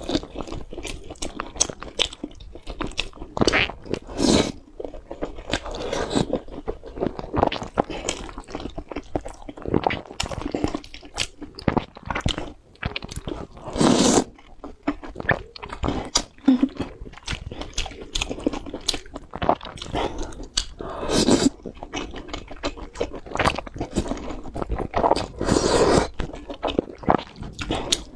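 Close-miked mouth sounds of a person eating wide noodles and sliced meat in chili sauce: continuous chewing, with several longer slurps as noodles are sucked in, the longest about halfway through.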